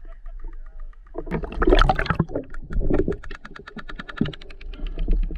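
Water splashing and sloshing around a camera held at the waterline, loudest in a splash about a second and a half in. Through the second half a rapid, even clicking runs at about ten ticks a second.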